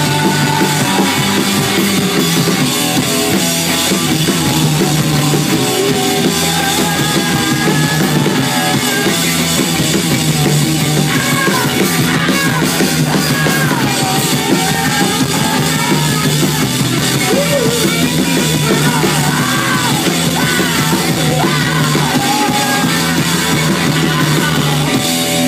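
Live punk-rock band playing loud, with electric guitars, bass guitar and drum kit, and a singer's voice over it, clearest in the second half.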